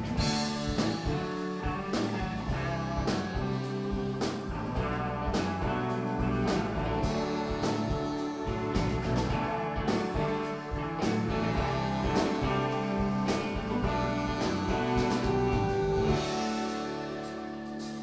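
Live rock band playing an instrumental passage: electric guitars over bass and drums with a steady beat. About 16 seconds in, the beat drops away and a held chord rings on.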